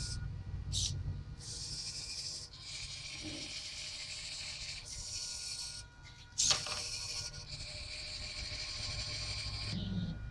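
Small robot arm's servo motors whirring in stop-start spurts as the arm swings over to the parts bin and back, under a steady low hum. One sharp clack about six and a half seconds in, when the gripper lets its block drop into the bin.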